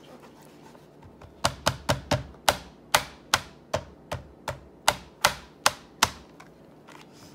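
Hand tapping and pressing on the clear plastic lid of a stamping platform, over clear leaf stamps, to push the inked stamps down onto the card. About fourteen sharp taps come at a steady pace of two to three a second, starting about a second and a half in.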